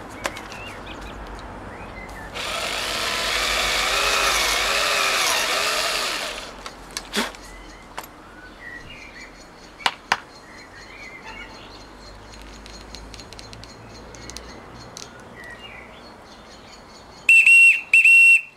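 A power drill runs for about four seconds, boring more wood out of a twig whistle's chamber, followed by a few light knocks. Near the end the twig whistle is blown twice, two short steady high notes, now lower and closer to the wanted pitch after the extra wood was taken out.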